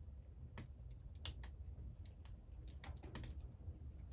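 Faint wood fire crackling inside a Kni-Co Trekker steel tent stove burning hard: about a dozen sharp, irregular pops and snaps, bunched together around three seconds in, over a low steady rumble.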